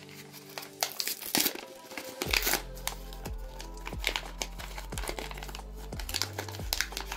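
A paper packet crinkling and rustling as fingers open it and reach inside. Soft background music plays under it, with a low bass coming in about two seconds in.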